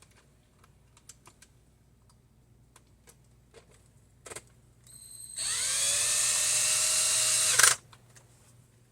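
Cordless drill spinning up with a rising whine, running steadily for about two seconds and stopping abruptly with a click. Before it come a few light clicks and taps.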